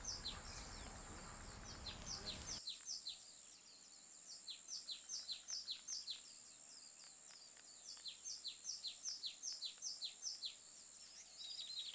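A bird calling faintly in bouts of quick high chirps, about three a second, each note falling in pitch, with short pauses between bouts. A soft rushing noise sits under the first couple of seconds.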